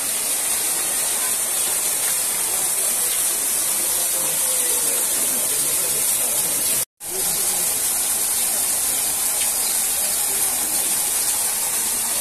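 Small artificial waterfall splashing down a rock face: a steady hiss of falling water that cuts out for a moment about seven seconds in.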